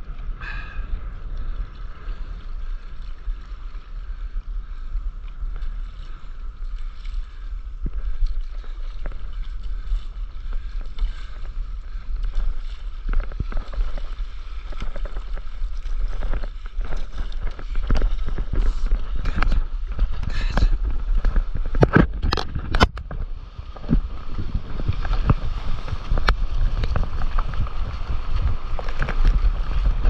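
Sea water rushing and splashing against an action camera held right at the wave surface, with wind rumbling on its microphone. Sharp slaps of water hitting the camera housing come thicker and louder in the second half, loudest a little over two-thirds of the way through.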